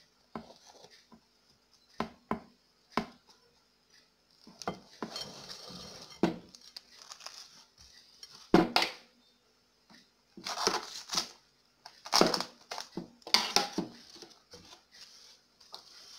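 Plastic cling film being pulled, crinkled and pressed down over a plate, with sharp knocks of the plate and roll against the wooden board. The crinkling comes in bursts in the second half, and the loudest knock falls a little past halfway.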